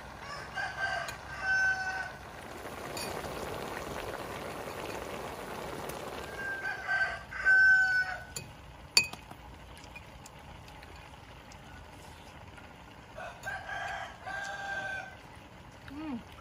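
A rooster crowing three times, about six seconds apart, each crow rising through a few short notes into a long held note. A single sharp click sounds about nine seconds in.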